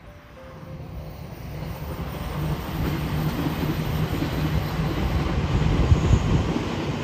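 Electric multi-car express train running past on the line, a steady rumbling rush with a low hum that grows louder as it approaches and is loudest near the end.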